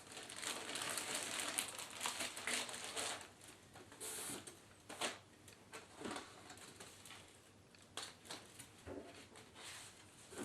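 Plastic wrapping and packaging rustling and crinkling as it is handled for the first few seconds, then a short hiss and a few scattered light knocks and clicks.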